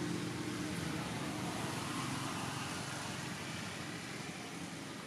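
A motor vehicle's engine hum fading away about a second in, leaving a steady outdoor hiss.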